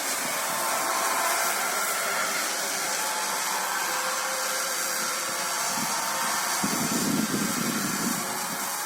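Ferris wheel creaking and squealing as it turns, a wavering high-pitched squeal of the wheel's mechanism. A lower rumble joins for about a second and a half near seven seconds in.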